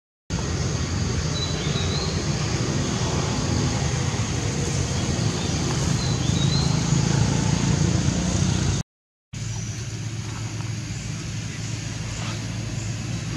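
Steady outdoor background noise: a low rumble with a thin high drone over it and a couple of brief faint chirps. It drops out for a moment twice, at the video's edits, and after the second break the rumble is quieter.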